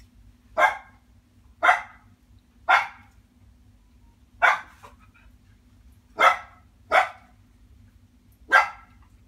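A dog barking: seven short single barks, spaced about a second apart, with a longer gap in the middle.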